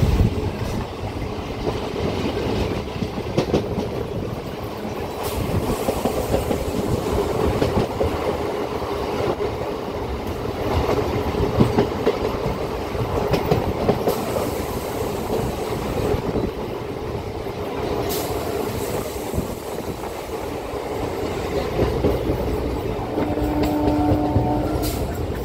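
MEMU electric passenger train running at speed, heard from its open doorway: a steady rumble of wheels on rails with rail-joint clatter and rushing air. A horn sounds for about a second and a half near the end.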